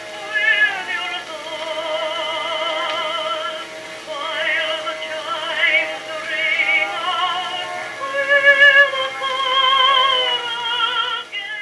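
Singing with a strong vibrato, played from a record on a late-1950s Admiral 329 record player through its tube amplifier and small speaker, with little bass or treble. The repaired turntable drive is holding steady speed, without flutter.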